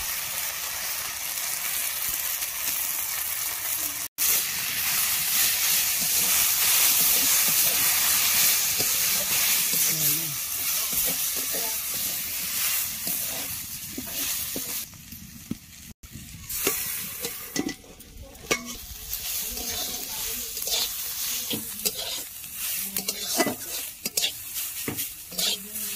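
Sliced straw mushrooms sizzling in hot oil in a wok while a metal spatula stirs them, scraping and tapping against the pan. The clicks of the spatula come thicker in the second half as the sizzle eases.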